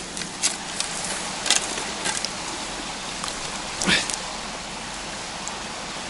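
Steady rush of a small forest stream, with scattered crackles and snaps of dry twigs and brush as a fish is landed and handled on the bank.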